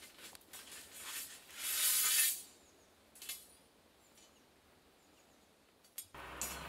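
Light metallic clinks of steel reinforcing bar being handled in a foundation trench, with a louder scraping rush about two seconds in. Near the end a steady truck engine hum starts.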